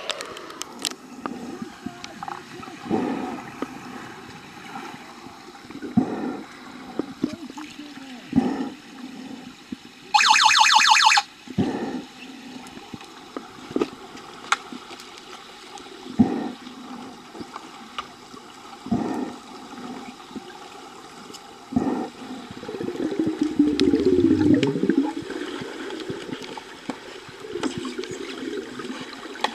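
Pool water heard through an underwater camera: sloshing and bubbling with scattered muffled knocks. About ten seconds in, a loud electronic-sounding buzz lasts about a second.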